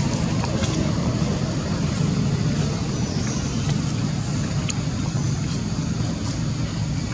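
Steady low rumbling background noise, with a few faint clicks.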